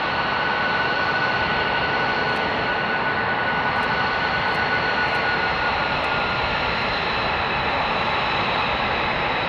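Jet engines of a formation of F-22 Raptor fighters, twin Pratt & Whitney F119 turbofans each, running at taxi power: a steady rush with high whining tones, one of which fades about two-thirds of the way through.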